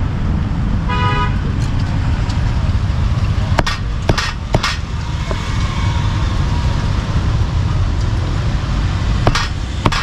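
Steady rumble of street traffic with a short vehicle horn toot about a second in. Sharp knocks of a cleaver chopping grilled meat on a board come in a small cluster about four seconds in and again near the end.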